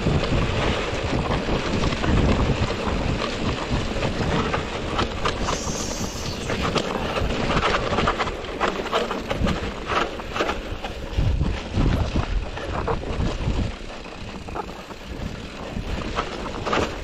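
Mountain bike clattering and rattling over a rocky trail, with many sharp knocks from the wheels hitting stones, under steady wind buffeting on the action-camera microphone. The clatter eases for a few seconds near the end.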